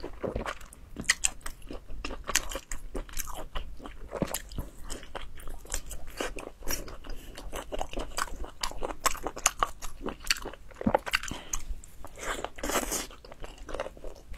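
Close-miked eating sounds: chewing and biting grilled squid, with many quick, irregular mouth clicks and smacks.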